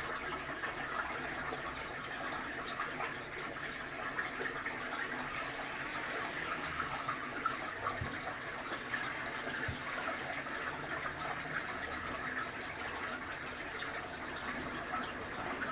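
Toshiba AW-404 fully automatic washing machine running, with a steady rush of water in the tub.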